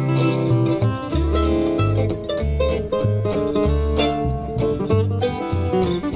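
Small acoustic string band playing a swing tune live: mandolin and guitars picking and strumming over an upright bass walking about two notes a second.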